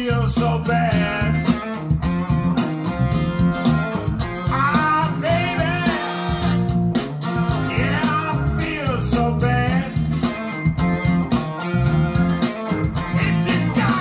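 A song with guitar and singing played through a pair of Magnepan 3.7i planar-magnetic speakers.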